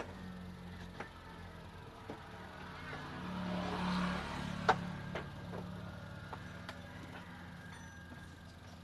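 Cloth rubbing and brushing right against the microphone, with a few sharp light clicks and a steady low hum underneath.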